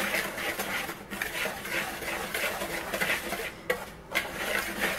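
A wire whisk stirring dry flour mix in a plastic bowl: a rhythmic swishing and scraping of the wires through the powder and against the bowl, with a couple of sharper taps near the end.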